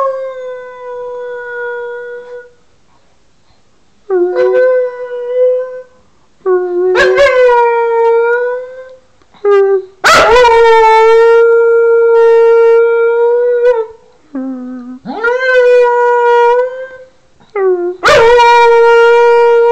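A cocker spaniel howling in a string of about seven drawn-out howls. Each opens on a short lower note and leaps up to a held tone. The longest, about ten seconds in, lasts around four seconds.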